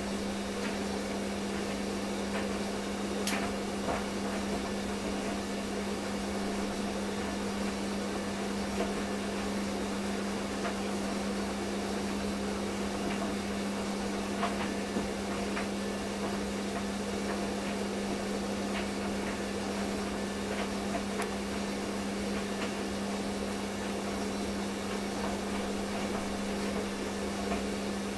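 A steady low hum over a constant background hiss, with a few faint clicks. The clearest click comes about three seconds in.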